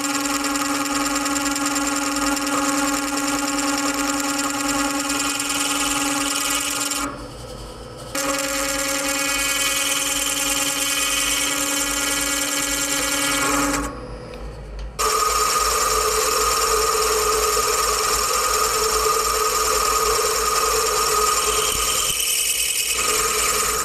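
Milling machine cutting a counterbore into a hardened 930 CV joint inner star, the cutter giving a steady pitched ringing with many overtones. The cut stops briefly twice, and after the second stop the ringing comes back at a higher pitch.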